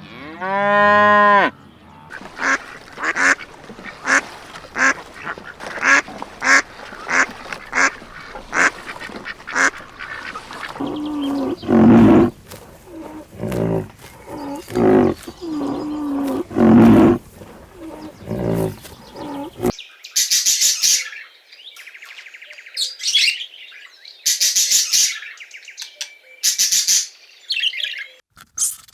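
Farm animals calling: a cow's moo just at the start, then a long run of short, repeated nasal calls, several together, quacking and honking in kind. About twenty seconds in, the sound changes abruptly to bursts of shrill, high-pitched squeals.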